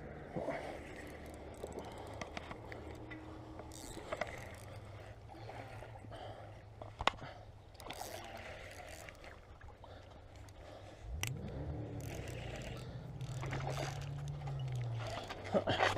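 Spinning reel being cranked against a hooked striped bass, with scattered clicks and handling knocks. Underneath runs a low motor drone that rises in pitch about eleven seconds in, then settles lower and grows louder toward the end.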